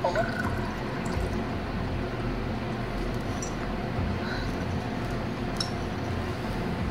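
EMO desktop robot's speaker playing its cup animation sound: a short rising chirp, then liquid-pouring sound effects with a few small high blips, over a steady low hum.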